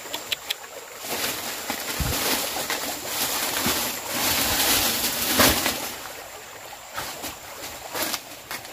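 Leaves and stems rustling and brushing against the rifle-mounted camera as it is pushed through dense undergrowth, louder through the middle, with scattered small clicks and snaps.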